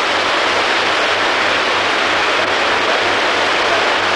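Steady rush of waterfall and river water, an even, unbroken hiss.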